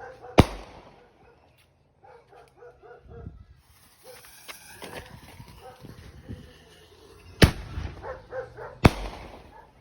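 Three sharp firework bangs, one just after the start and two close together near the end, with a dog barking in between and a high hiss.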